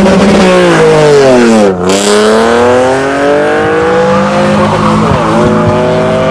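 Performance car engine revving hard on track: the revs fall to a low point about two seconds in, then climb steadily, dip briefly about five seconds in and climb again.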